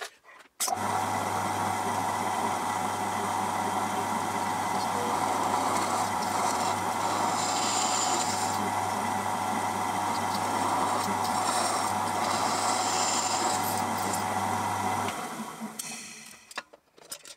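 Pillar drill motor switched on, running steadily with a low hum, while the bit drills through a copper boiler barrel and butt strip; a higher-pitched cutting noise comes in twice. The drill is switched off about fifteen seconds in and runs down.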